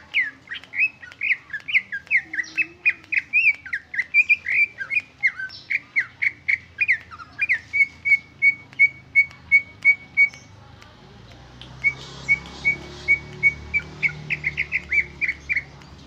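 Caged greater green leafbird (cucak ijo) singing its own natural song, with no imitations of other birds mixed in. A fast run of varied clear whistles comes first, then a string of short repeated notes at about two a second. After a brief pause more repeated notes follow, and a rapid trill comes near the end.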